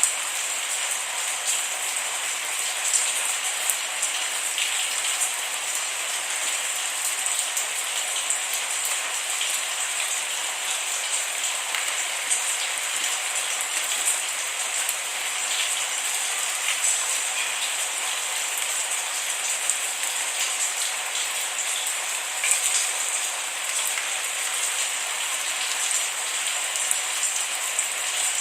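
Steady rain without thunder, a dense even hiss with many small drop ticks scattered through it.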